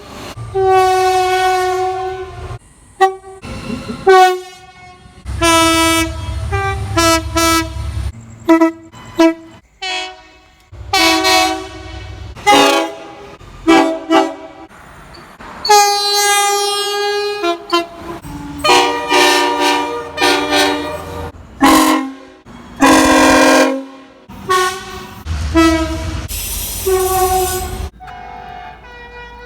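Train horns sounding one after another in quick succession, each a chord of several tones. The pitch and length change as the sound cuts abruptly from one horn blast to the next. A low rumble runs under some of the blasts.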